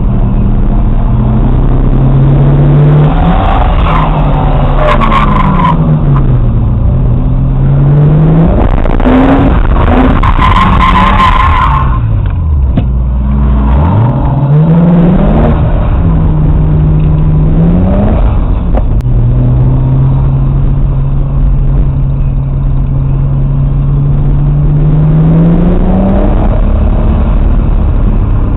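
Car engine heard inside the cabin during hard track driving, revs rising and falling through the gears and corners. Tyres squeal twice, a few seconds in and again around ten seconds in, and the revs drop sharply a little later before climbing and holding steady.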